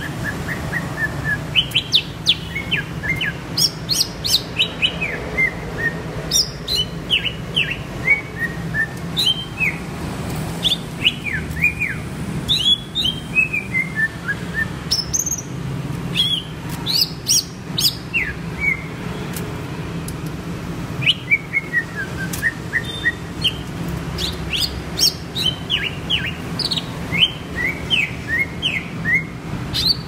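Caged male green leafbird (cucak ijo) singing: fast runs of sharp chirps and quick falling whistles, in phrases broken by short pauses, over a low steady hum.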